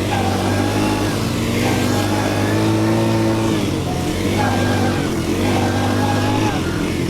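ATV engine running under way, its pitch rising and falling several times as the throttle is opened and eased off.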